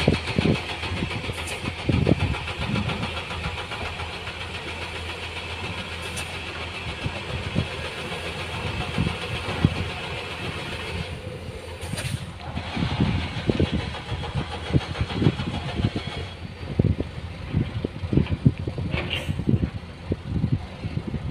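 Diesel dump truck engines running, with a steady higher whine that fades about eleven seconds in. Irregular low thumps come through the second half.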